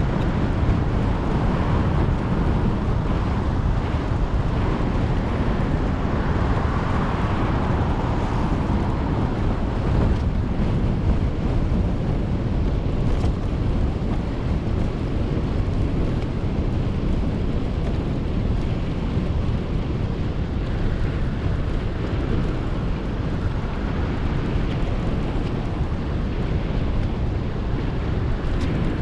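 Steady wind rumble buffeting the microphone of a GoPro action camera while it moves along at speed, mostly low and even throughout.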